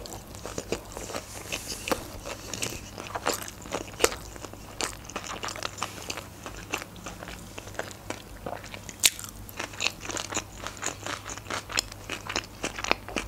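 A person chewing a mouthful of sushi roll with the mouth closed: a steady run of small wet clicks, crackles and soft crunches.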